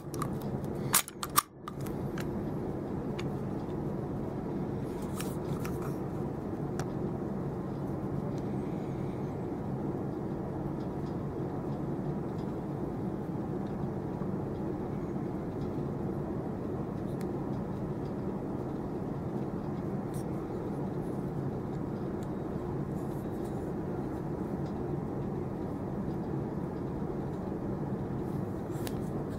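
A few sharp clicks about a second in, then a steady low drone sets in and holds at an even level.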